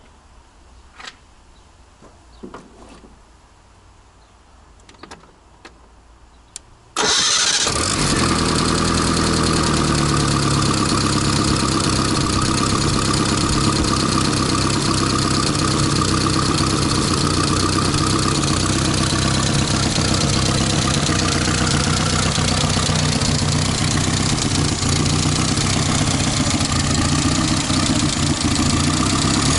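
A few faint knocks and footsteps, then about seven seconds in the Nissan/Datsun A12 four-cylinder engine in a Suzuki SJ410 starts suddenly and runs steadily. It misfires here and there, which the owner puts down to old spark plugs, coil and ignition leads.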